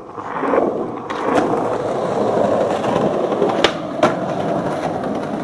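Skateboard wheels rolling over concrete pavement: a steady rumble, with a few sharp clacks along the way.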